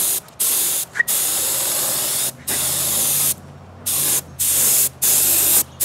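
Small gravity-feed detail spray gun on compressed air spraying paint: a loud hiss in about seven short bursts as the trigger is pulled and released between passes.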